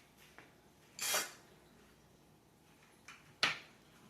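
Short knocks and clatters of mini greenhouse frame parts being handled during assembly: one about a second in and a sharper one near the end, with a few faint clicks between.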